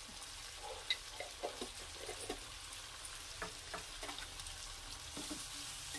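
Tomato pieces and red chillies frying in oil in a non-stick pan, a steady sizzle with small pops and crackles here and there.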